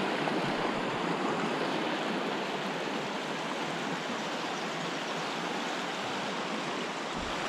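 Steady rushing of a stream running high and muddy with spring runoff.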